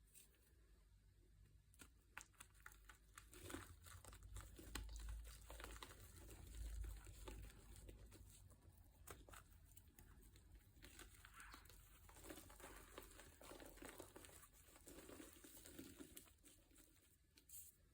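Faint, irregular crinkling and crackling, as of something being crumpled or handled, with many small clicks.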